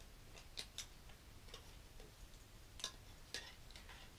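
Faint, irregular clicks of plastic Lego bricks being handled and pressed together, about half a dozen small clicks spread unevenly.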